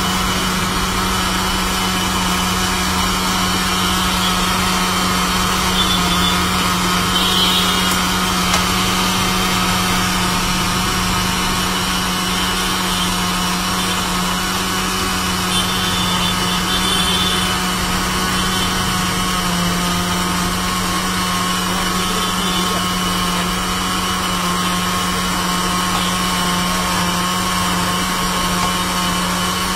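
Electric countertop blender running steadily, its motor holding one even hum as it churns a frothy lemon-juice drink in a plastic jar.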